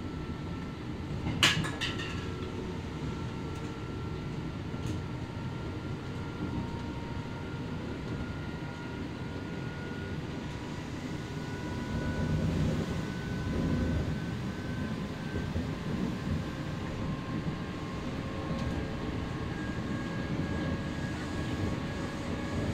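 Kintetsu 8000-series electric train heard from inside the car while running: a steady wheel-and-rail rumble with a thin traction-motor whine that climbs slowly in pitch as the train gathers speed. There is one sharp click about a second and a half in, and the rumble swells briefly around the middle.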